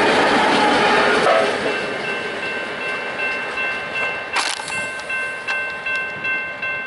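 The rear locomotive and wheels of a coal train pass close by at a level crossing, loud at first and dropping away after about a second and a half. Then the crossing's warning bell rings steadily, about two strokes a second, as the train recedes.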